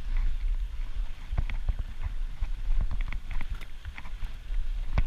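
Bicycle rattling and knocking as it rides over a rough dirt track, with irregular sharp clicks and a steady rumble of wind on the microphone.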